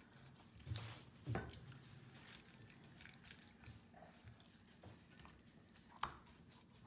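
Faint wet squishing of hands pressing chermoula (a herb-and-spice marinade) into whole fish, with a few soft knocks around a second in and near the end.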